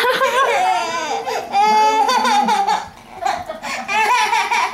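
A young child laughing and squealing in high-pitched, wavering vocal sounds, with a short break about three seconds in.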